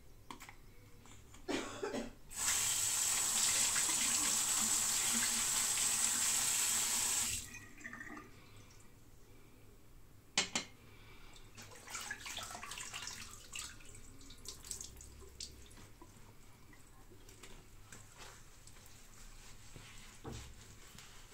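Bathroom tap running into a sink for about five seconds, then shut off abruptly. A sharp knock follows a few seconds later, then faint scattered handling sounds.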